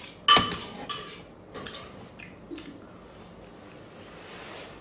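Close-up eating sounds: a sharp click about a third of a second in, then scattered faint wet smacks and clicks of chewing roast duck meat.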